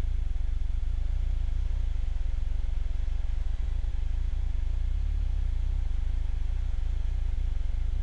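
Steady low drone of an airplane's engine in flight, heard from inside the cockpit, with no change in pitch or level.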